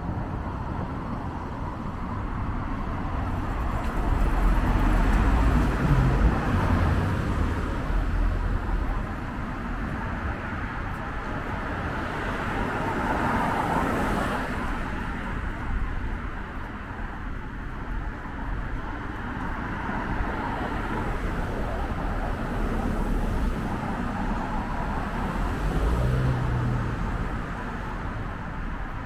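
City street ambience with car traffic, one car swelling past about halfway through.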